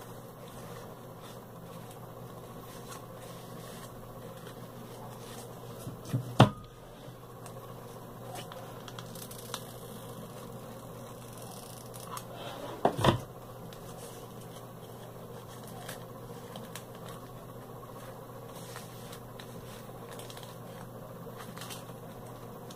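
Hands handling a small craft hat of ribbon and lace while hot-gluing it: light scratching and rustling over a steady low hum, with two sharp knocks about six and thirteen seconds in.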